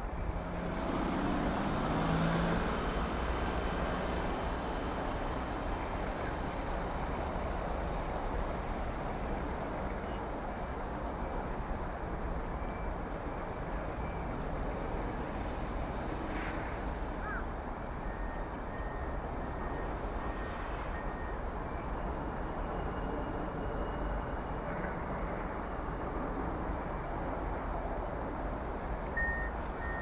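Steady rumble of distant road traffic, a little louder in the first few seconds, with faint high ticks over it.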